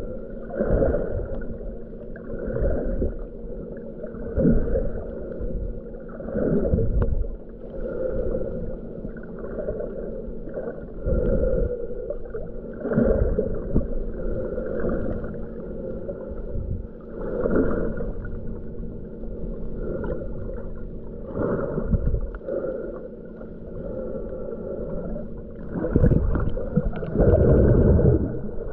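Muffled water noise picked up by a camera held underwater while snorkelling: water swishing and surging against it every second or two, over a steady low hum.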